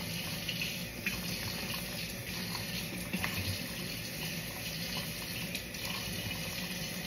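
Kitchen faucet running steadily into the sink, with water splashing over a meal container as sticky gel is rinsed off it. A few light knocks of the container are heard.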